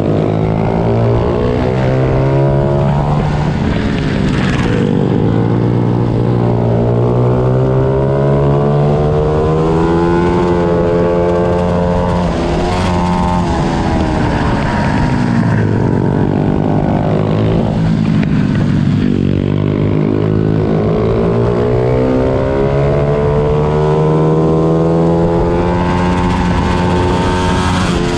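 Pit bikes racing, their small engines revving up and dropping back again and again as they accelerate and slow, with more than one engine note overlapping at times.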